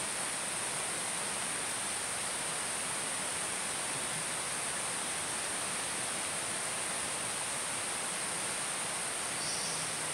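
Steady high-pitched drone of a forest insect chorus over a constant hiss, unchanging throughout.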